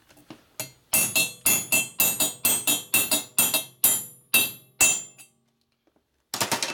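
Hammer blows on a steel driver, beating a standard-size valve guide into a heated aluminium Harley panhead cylinder head: about fifteen sharp, ringing metal strikes, some four a second and slowing toward the end, then a quick run of lighter taps near the end.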